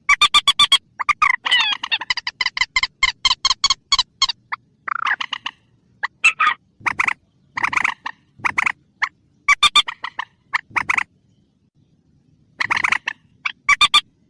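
Recorded lure call of the mandar, a swamphen: a rapid run of short, loud calls, then separate calls about a second apart. There is a pause of a second or so before a last few calls near the end.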